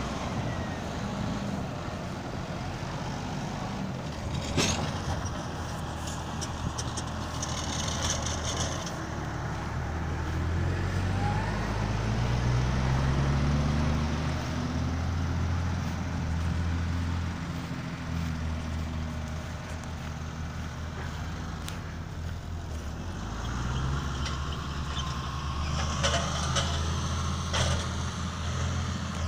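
Deutz Agrotron tractor engines running steadily, the pitch rising and falling as the engine works under load. A sharp knock comes about four and a half seconds in and a short hiss a few seconds later. A few clicks and rattles come near the end.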